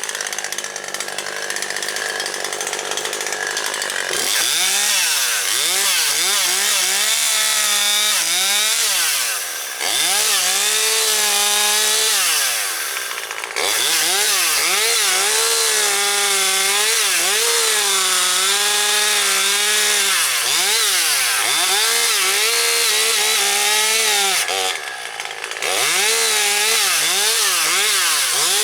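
Husqvarna 540XP Mark III two-stroke chainsaw cutting wood. It idles for the first few seconds, then runs at high revs with the pitch sagging and recovering over and over as the chain bites. It eases off briefly a few times in between.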